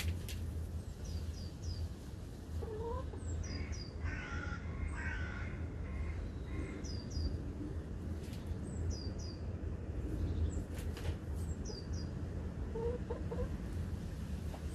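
Domestic hens clucking briefly now and then, with short high chirps coming in twos and threes. A few sharp clicks, over a steady low hum.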